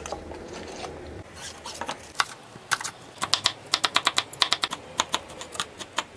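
Kitchen knife chopping chili peppers on a wooden cutting board: a quick run of sharp knocks of the blade on the wood, about four or five a second, starting about a second and a half in.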